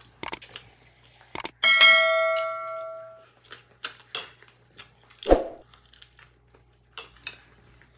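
Subscribe-button sound effect: a couple of quick clicks, then a bright notification-bell ding that rings out for about a second and a half. About five seconds in there is a short dull knock.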